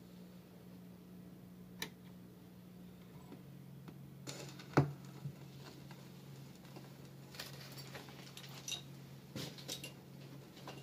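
Quiet, steady low hum from a record player and its amplifier, with scattered clicks and pops; the hum changes pitch slightly about three and a half seconds in, and the sharpest click comes about five seconds in.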